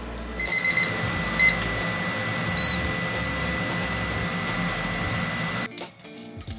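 Induction cooktop beeping: a quick run of short beeps, then another a moment later. After that it runs with a steady hum and a thin, steady high tone, which cut off abruptly near the end.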